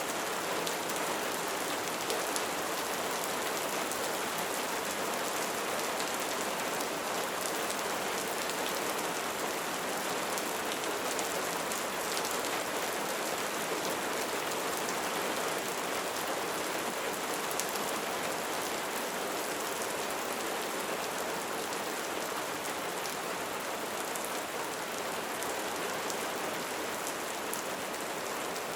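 Steady light rain falling, a continuous patter of many small drops hitting surfaces, with fine, crisp drop ticks.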